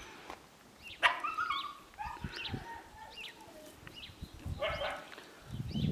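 Five-week-old Siberian Husky puppies giving short, high-pitched yips and little barks as they play, a sharp one about a second in with a few more after it, and another group near the end.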